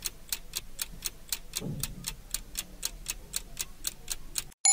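Countdown timer sound effect: a clock ticking evenly, several ticks a second, stopping just before the end.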